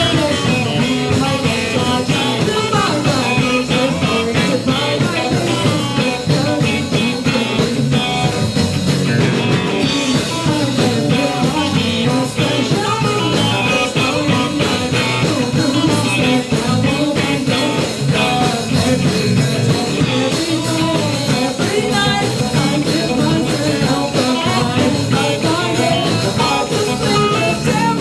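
Live rock band playing a song, electric guitars in drop D tuning with bass and drums, a vocalist singing over it.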